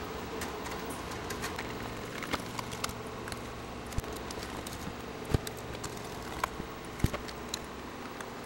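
Scattered light clicks and knocks of a screwdriver and the power station's plastic case parts being handled and fitted together, with a few sharper knocks about four, five and seven seconds in, over a steady low hum.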